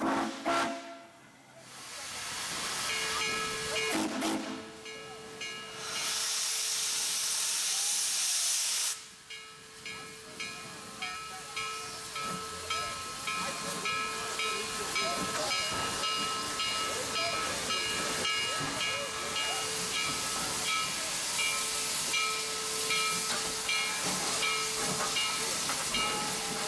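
Western Maryland 734, a 1916 Baldwin 2-8-0 steam locomotive, hissing steam while it stands. About six seconds in there is a loud burst of venting steam lasting about three seconds. After it, a steady quick rhythmic pulse runs under the hiss.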